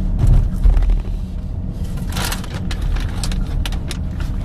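Car cabin rumble from a moving car, steady and low, with a few faint clicks and a short burst of noise about two seconds in.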